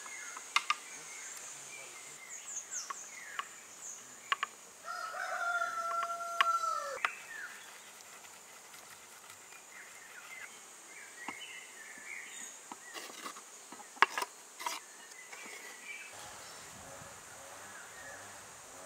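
A rooster crows once about five seconds in, a held call that drops off at the end, over a steady high insect drone. Scattered sharp clicks and taps come and go, the loudest a little past the middle.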